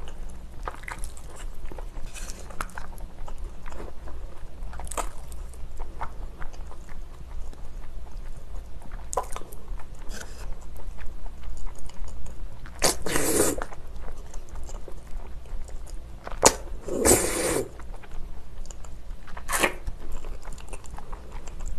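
Close-miked eating of spicy bibim-naengmyeon: cold noodles being slurped and chewed, with wet mouth clicks. Two louder breathy bursts come about thirteen and seventeen seconds in.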